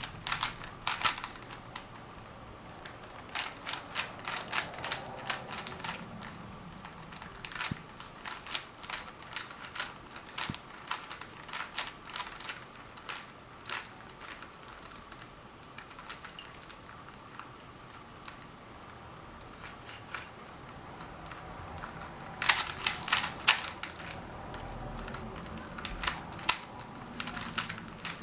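Plastic Rubik's Cube being solved by hand: rapid clicking as its layers are turned, in quick runs with pauses between, and a dense, louder run a little past the middle.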